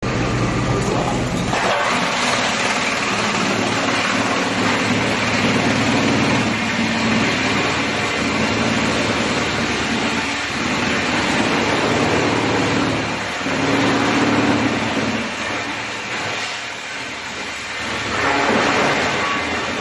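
Drum wood chipper running: a loud, steady mechanical din with a hum that comes and goes, the sound changing about one and a half seconds in and swelling briefly a few times.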